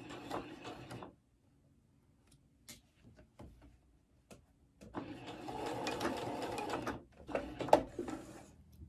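Pfaff sewing machine stitching through fabric in short runs: about a second at the start, a steadier two-second run in the middle, and a brief run near the end with a sharp click. Faint clicks fall in the pauses between runs. It is sewing the last stretch of a scrunchie's opening closed.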